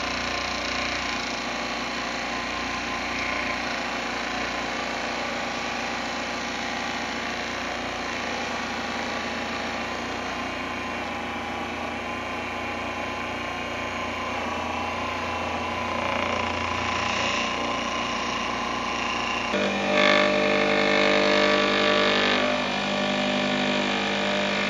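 Electric motor of a pen finishing station running steadily, spinning a cloth buffing wheel loaded with polishing compound while an acrylic pen blank is buffed against it. About 20 seconds in the tone changes and gets a little louder.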